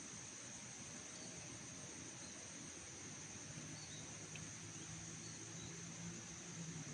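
Faint outdoor ambience: a steady high insect drone over an even hiss, with a few faint high chirps and a low hum coming in about halfway through.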